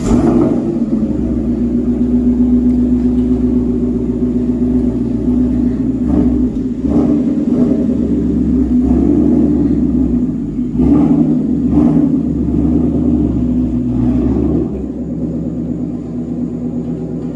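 2018 Ford Mustang GT's 5.0 L Coyote V8 running through an AWE Touring catback exhaust with an H-pipe, a deep, low exhaust tone, at a fast idle just after a cold start. It settles to a lower, quieter idle about 14 seconds in.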